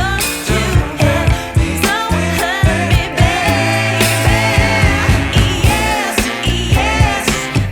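Background pop song with a female voice singing over a steady drum beat and bass.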